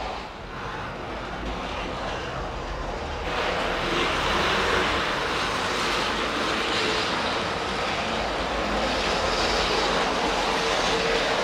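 Märklin model train running on its track: a steady whirring and rattling of motor and wheels on the rails, louder from about three seconds in.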